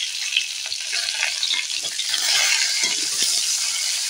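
Freshly added chopped onion and potato pieces sizzling in hot oil in a metal kadai, with a spatula scraping and knocking against the pan as they are stirred.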